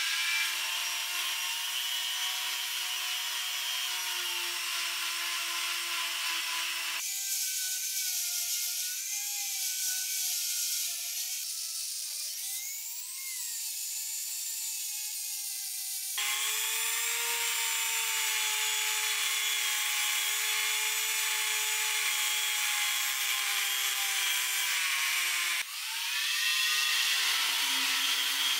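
Handheld rotary tool spinning at high speed with a small sanding drum, grinding along a small iron blade: a steady high whine over an abrasive hiss. The pitch dips and recovers briefly near the middle and jumps to a new level at three abrupt cuts.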